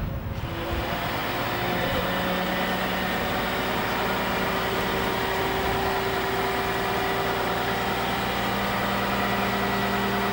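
Mobile crane's diesel engine running steadily while hoisting a load, with a steady whine over the engine rumble.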